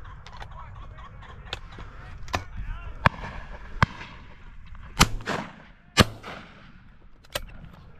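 A string of shotgun shots at driven pheasants. About five sharp reports come from about three seconds in, the two loudest near five and six seconds with an echoing tail, and a few fainter shots come earlier.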